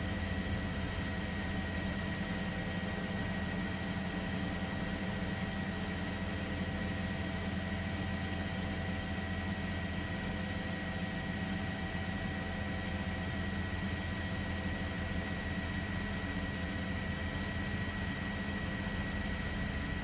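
Steady drone of a helicopter's engine and rotors with a constant high-pitched whine, unchanging throughout; no blasts or collapse can be heard.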